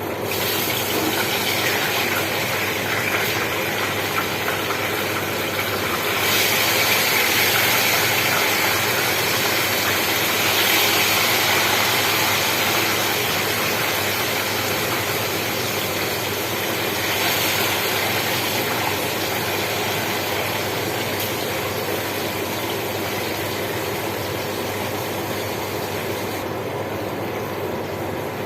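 Food frying in hot oil in a pan: a steady, loud sizzle that swells a little about six seconds in.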